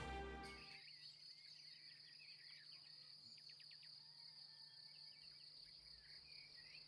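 Orchestral music dying away in the first second. Then near silence, with a faint steady high-pitched tone and a few faint chirps.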